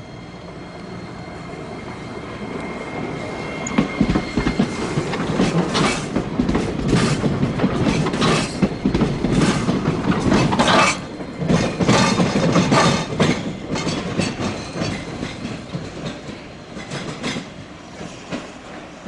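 Hiroshima Electric Railway streetcar passing, its wheels clacking over rail joints and points in a run of sharp knocks. It grows louder to a peak in the middle and fades toward the end.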